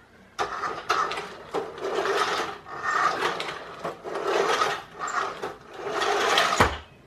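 A 1:14 scale remote-control car's small electric drive motor and plastic gearbox whirring in repeated bursts of about a second each, as it is driven in short spurts. There is a sharp knock near the end.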